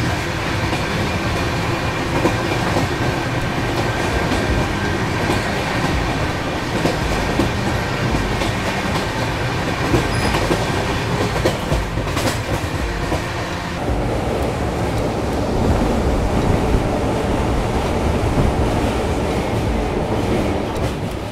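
Express passenger train running at speed, its wheels clattering over the rails, heard loud and close at an open coach door.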